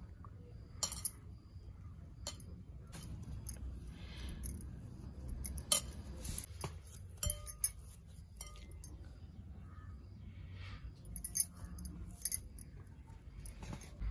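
Metal bangles on a wrist clinking against a glass mixing bowl as a hand mixes and kneads soft dough: scattered sharp clinks at irregular intervals, with the loudest around the middle and near the end.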